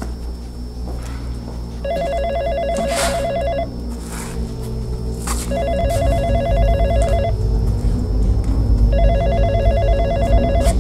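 A desk telephone ringing three times, each ring a fast trilling tone of about two seconds with a pause of similar length between rings. Low droning background music runs underneath and grows louder about halfway through.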